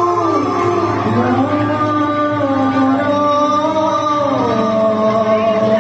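Bhaona devotional music: a sung melody of long held notes that glide from pitch to pitch, over a steady low drone.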